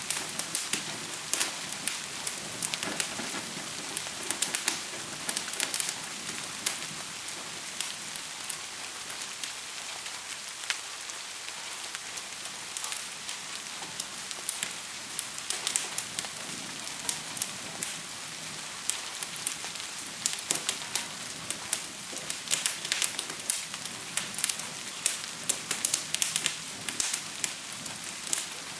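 Crackling fire mixed with steady rain: a constant hiss of rain with irregular sharp pops and snaps from the fire, coming in thicker clusters about two to six seconds in and again over the last several seconds.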